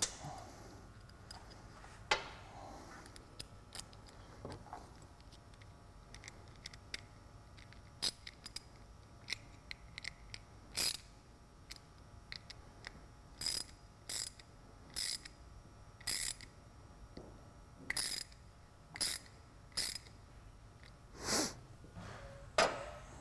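A small 7 mm wrench ratcheting as it tightens the two nuts holding a toggle switch's back plate. Faint scattered clicks at first, then from about halfway a run of short ratcheting strokes, roughly one a second.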